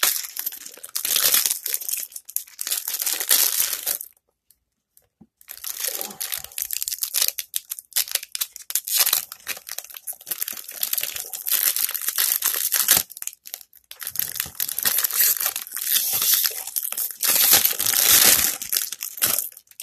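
Plastic trading-card pack wrappers crinkling as they are handled and opened, in irregular runs with a pause of about a second and a half about four seconds in.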